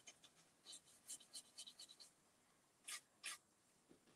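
Faint scratchy strokes of a bristle paintbrush dabbing paint onto a metal file cabinet drawer: a quick run of short strokes about a second in, then two more about three seconds in.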